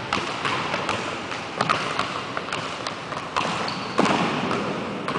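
Basketball being dribbled on a hardwood gym floor, a string of sharp bounces ringing in a large hall, with a louder thud about four seconds in.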